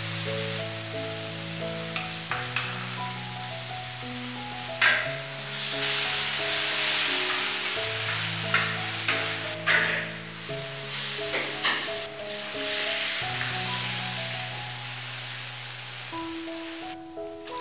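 Oil sizzling in a wok as chopped chillies, ginger, garlic and perilla leaves fry and are stirred, with several sharp clinks of the spatula against the wok. The sizzle swells louder for a few seconds in the middle. Soft background music with held notes plays throughout.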